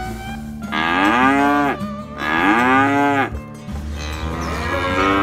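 Cows mooing: two long calls of about a second each, one after the other, each dropping in pitch at the end, with a third call starting near the end.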